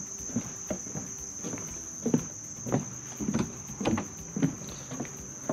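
Footsteps on the wooden boards of a dock at a steady walking pace, a little under two steps a second, under a steady high-pitched insect chorus from the marsh grass.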